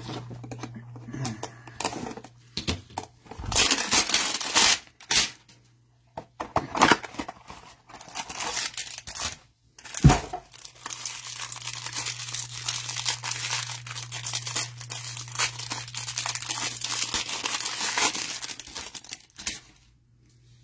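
Wrapping of a trading-card hanger box being torn open and crinkled by hand, in irregular rustling bursts that become a near-continuous crinkle in the second half, with one sharp knock about halfway through.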